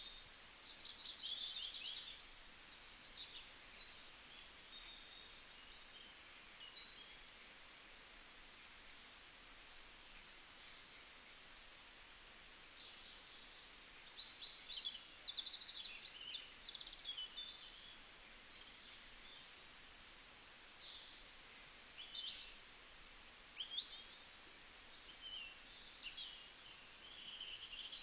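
Birds chirping and trilling, many short high calls overlapping at irregular moments, over a soft steady hiss.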